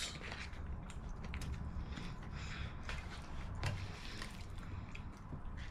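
Faint clicks and scrapes of a plastic utensil stirring and scooping fried rice in a paperboard frozen-meal tray, over a steady low hum.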